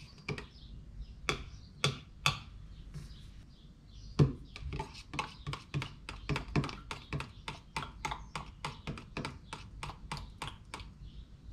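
A metal stirrer clicking against the sides of a plastic mixing cup as paint is stirred by hand. A few scattered clicks at first, then a quick run of clicks, about four a second, from about four seconds in until near the end.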